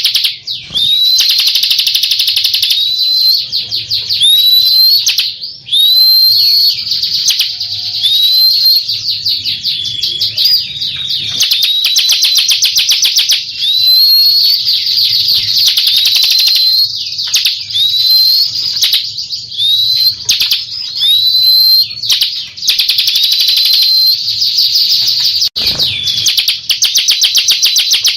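Bar-winged prinia (ciblek) singing: a fast, high-pitched rattling trill, repeated without break, with short upward-hooked notes every second or two.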